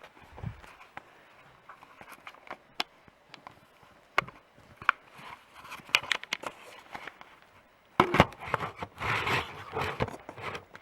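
Headphone box packaging being handled: scattered clicks and taps of cardboard and plastic, then a burst of rustling and scraping near the end.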